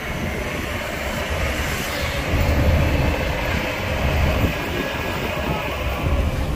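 Heavy diesel machinery running, a deep continuous engine rumble that grows louder about two seconds in.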